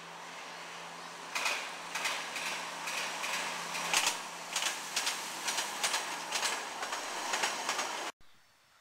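Train wheels clicking irregularly over rail joints and points, about two clicks a second, over a steady low hum. The sound cuts off suddenly near the end.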